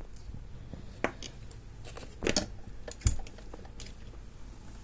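Lock and tools being handled on a workbench: a few scattered clicks and knocks, the loudest a short clatter about two seconds in and a sharp knock about a second later.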